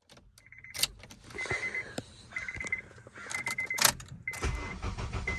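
A high electronic chime beeping about once a second, with keys jangling and clattering between the beeps. A low rumble comes in near the end.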